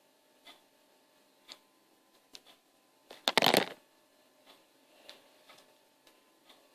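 Toys being handled: scattered light clicks and knocks, with a short burst of clattering about three and a half seconds in.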